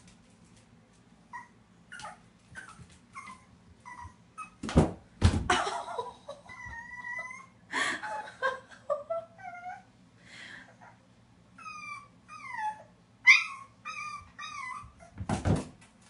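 Boston Terrier puppy whimpering in many short, high cries, a few held longer, with two loud thumps from the puppy jumping at the bathtub, about five seconds in and near the end.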